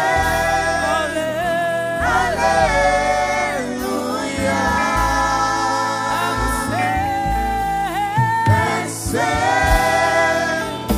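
Live gospel worship song: a woman's lead voice with a group of backing singers holding long sung phrases, over a live band with electric guitars and keyboard.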